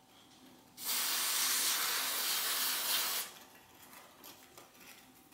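An aerosol spray can sprays in one steady hiss of a little over two seconds, starting and stopping sharply. Faint rubbing of a paper towel on the fork tube follows.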